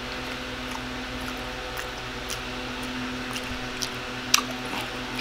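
Quiet mouth sounds of chewing, with scattered soft clicks and one sharper click a little after four seconds in, over a steady low electrical hum.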